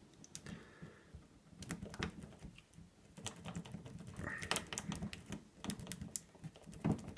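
Irregular small clicks and scrapes of a cut-down zip tie being worked into a wafer lock's keyway against the wafers.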